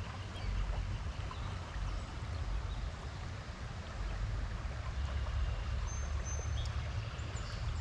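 Stream water running: a steady, even rush.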